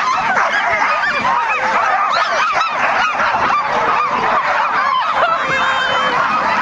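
A team of sled dogs barking and yelping all at once in a dense, unbroken chorus of short high yelps.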